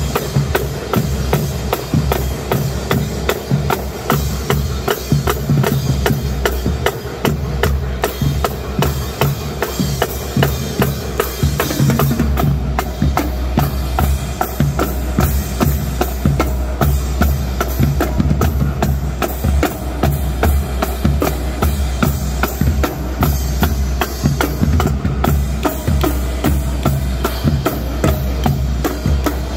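Marching drum line playing a fast, dense cadence: snare drums, tenor drums and bass drums with cymbals. The bass drums get heavier about twelve seconds in.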